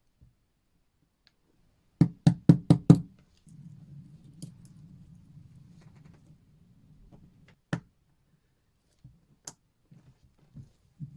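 A quick run of five sharp knocks, about five in one second, then a quiet low rustle of handling and two single clicks a few seconds apart.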